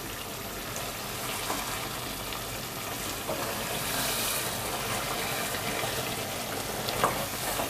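Thick curry of hilsa roe and chana dal sizzling and bubbling in a pot as it is stirred with a wooden spatula, with soft scrapes and a sharper click near the end.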